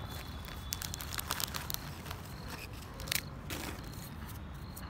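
Irregular crackling, crunching and scraping in dry, gravelly dirt as it is scuffed, with a sharper click about three seconds in.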